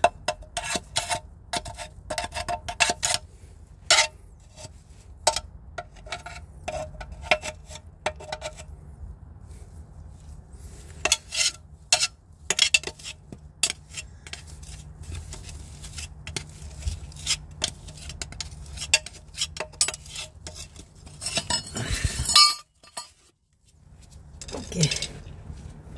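Metal tool scraping and clinking inside the cast aluminium gearbox bellhousing as dirt and clutch-lining dust are cleaned out: many short, sharp clicks and scrapes, with a brief silence about 23 seconds in.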